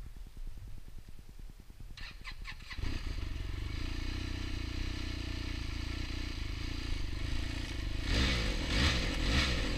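Arctic Cat Z1 Turbo snowmobile's 1,056 cc turbocharged four-stroke engine being started: the electric starter cranks about two seconds in, and the engine catches just before three seconds and settles into a steady idle. Near the end it is revved briefly a couple of times.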